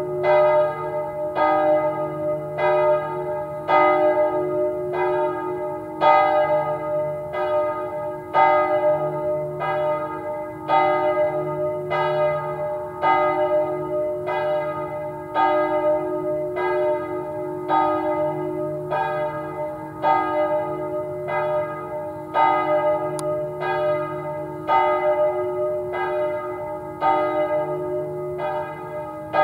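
Church bells of St. Martinus ringing the Angelus: a steady, even run of strikes about every three-quarters of a second, each one ringing on into the next.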